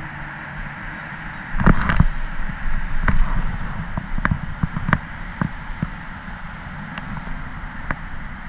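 Wind rumbling on the microphone while a small bluegill is reeled in and landed on a spinning rod. There is a louder rustle about two seconds in, then scattered clicks and knocks from handling the rod and reel.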